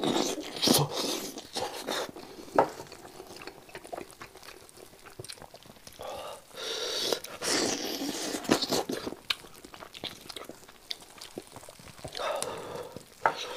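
Eating spicy braised lamb trotters: biting and chewing meat off the bone, with wet mouth sounds and sharp clicks. A burst of tearing and squelching around six to eight seconds in as the trotter is pulled apart by hand, and another burst of eating near the end.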